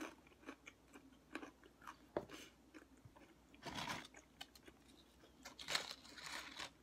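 Close-miked eating: crunching and chewing, with scattered small clicks and two longer noisy bursts, about a third of the way in and near the end.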